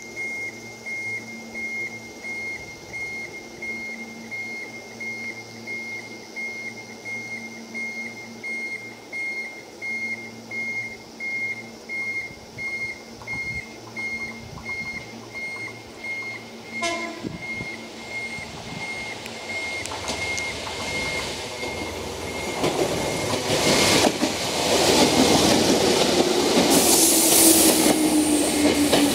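A warning bell dings at a steady rhythm. Then a Hokuriku Railroad ex-Tokyu 7000 series electric train draws near and runs in loud as it arrives. Near the end there is a falling whine and a brief high squeal as it slows.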